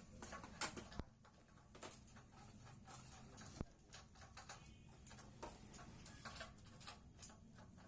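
Faint, scattered clicks and a few sharper knocks from hand work on the motorcycle, over a low steady hum.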